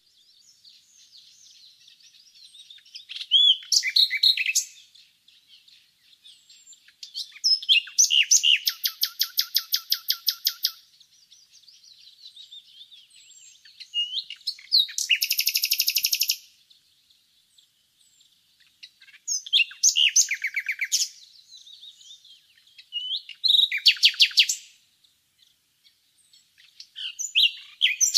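Common nightingale singing: loud phrases of one to three seconds separated by pauses of a few seconds, one phrase a fast run of repeated notes at about ten a second, with fainter birdsong between phrases.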